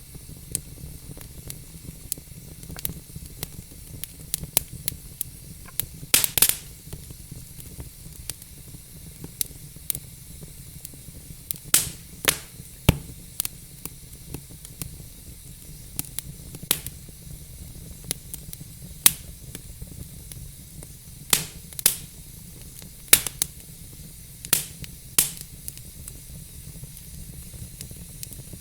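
Wood fire in a fireplace burning with a steady low hiss and irregular sharp crackles and pops from the logs, a few of them louder snaps.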